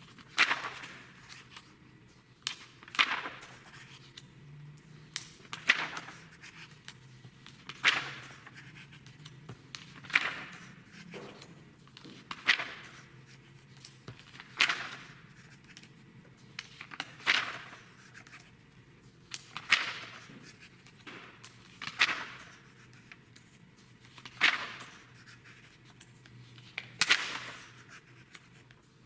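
Pages of a glossy art magazine being turned by hand one after another, each turn a crisp paper swish and flap, about one every two and a half seconds.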